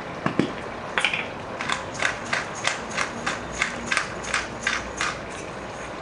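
Hand-turned spice grinder being twisted: a run of evenly spaced ratcheting grinding strokes, about three a second, starting about a second in and stopping about five seconds in.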